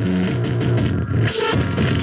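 Loud, continuous music.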